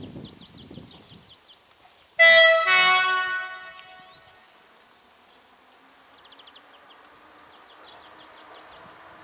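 Train horn sounding one loud blast with several tones together, starting about two seconds in and fading out about two seconds later. Birds chirp faintly around it.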